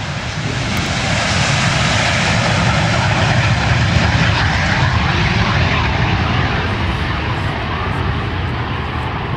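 Two Folland Gnat jet trainers making a simultaneous takeoff, their Bristol Siddeley Orpheus turbojets at full power. The jet noise grows louder over about four seconds as they accelerate past and lift off, then slowly fades as they climb away.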